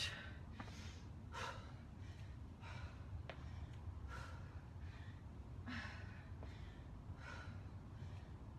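A woman breathing hard from exertion during weighted squats and kicks, with a short sharp breath roughly once a second over a steady low rumble.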